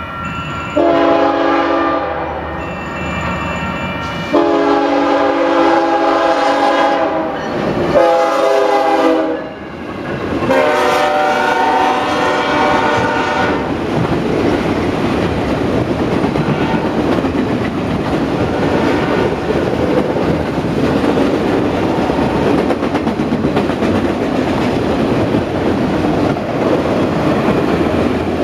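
Ferromex GE Evolution-series diesel locomotive sounding its air horn as a chord in four blasts, long, long, short, long: the grade-crossing signal. After the last blast, about halfway through, the steady clatter of wheels on rail joints as auto rack cars roll past takes over.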